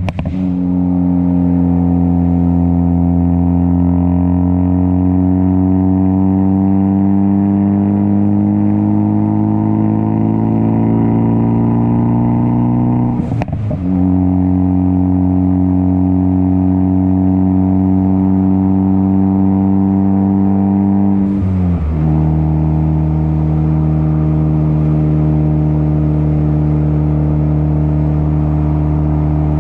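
Ford Focus ST's turbocharged four-cylinder engine droning steadily through a catless downpipe and muffler-delete exhaust under light throttle. Its pitch climbs slowly, breaks briefly with a short sharp click about halfway through, then steps down to a lower drone near three-quarters of the way in.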